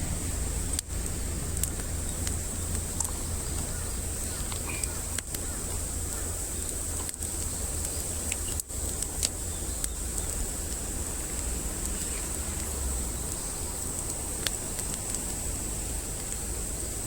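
Campfire burning, with a few faint scattered crackles over a steady low rumble and a steady high hiss.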